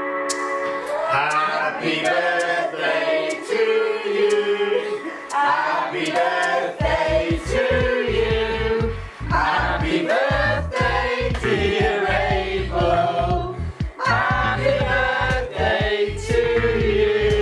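Background music with singing voices over held chords; a deep bass beat comes in about seven seconds in.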